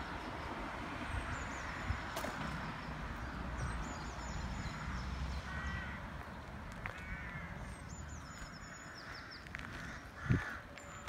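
Outdoor birdsong: crows cawing a few times, and a small songbird repeating a short high song that steps down in pitch. A low rumble of wind on the microphone runs underneath, with a soft thump near the end.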